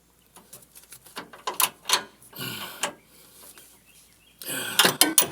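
Hand tools working a sway bar end link fastener: irregular metallic clicks and clinks of a ratchet wrench, with a short scrape about halfway through and faster clicking near the end.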